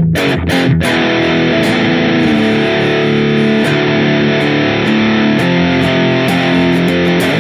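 Smiger LG2 H guitar being played: a few quick strums in the first second, then chords left ringing and changing every second or so.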